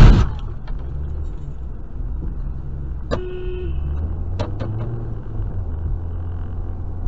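Dashcam recording inside a moving car: steady low road and engine rumble, with a loud burst right at the start. About three seconds in a car horn gives one short honk of about half a second.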